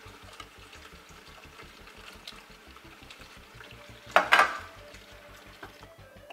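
A tin of tuna being drained at the kitchen sink: quiet small clinks and trickling liquid, with one short louder splash about four seconds in.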